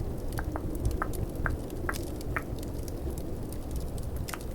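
Tongue clicking: about two sharp mouth clicks a second that stop about halfway through, over a steady low rumble of snowstorm and fireplace ambience.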